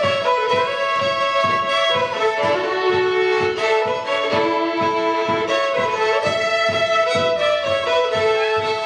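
A fiddle playing a lively tune, bowed notes moving through the melody over a steady beat of about two a second.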